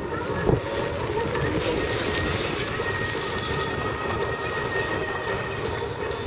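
A dirt-trial competition car's engine running hard as the car powers through a gravel course, with a steady drone and the hiss of tyres throwing up gravel and dust. A short thump comes about half a second in.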